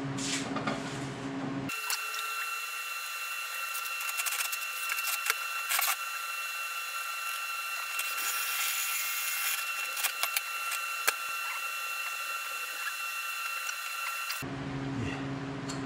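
Scattered clicks and rattles of steel parts being handled and fitted on a workbench, over a steady high-pitched hum. The sound is thin, with no low end.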